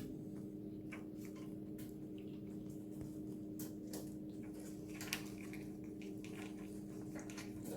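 Ferrets eating a raw egg: scattered small wet clicks and smacks of licking and chewing, one sharper click about five seconds in, over a steady low hum.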